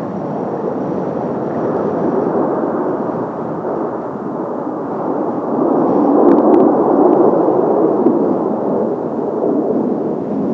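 Jet noise from Blue Impulse's Kawasaki T-4 jet trainers flying over, a loud, dense rush that swells to a peak about six seconds in and then eases off.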